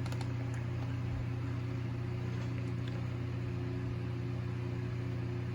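Steady low background hum with several evenly spaced overtones over a faint hiss, unchanging throughout.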